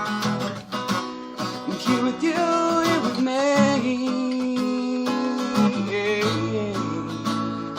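Acoustic guitar strummed and picked in the closing instrumental bars of a song.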